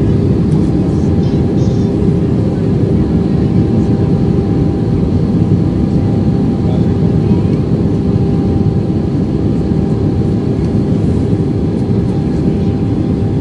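Steady cabin noise inside an Airbus A320 on its approach: the engines' even drone with a constant hum, under rushing airflow.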